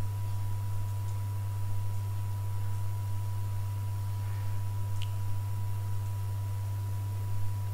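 Steady low electrical hum from the microphone and sound system, with a faint thin steady whistle above it. A faint tick about five seconds in.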